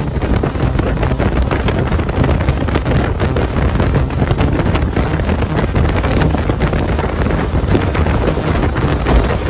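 Steady, loud wind rush buffeting the microphone on a motorcycle ridden at highway speed, with road and vehicle noise underneath.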